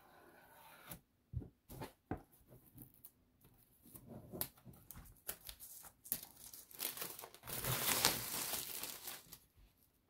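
Hands handling thin laser-cut plywood sheets and crinkling plastic wrapping, with scattered soft knocks and rustles and a louder stretch of crinkling about three-quarters of the way through.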